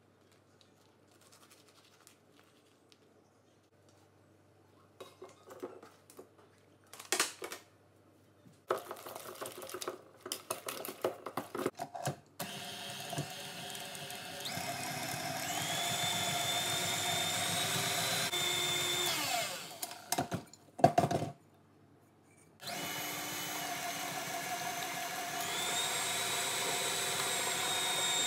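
Scattered quiet clicks and knocks, then a KitchenAid Artisan stand mixer starts, its wire whisk beating a buttery cream, and its whine climbs as it is switched to a higher speed. It winds down and stops, a couple of sharp knocks follow, and after a short pause the mixer starts again and is turned up once more.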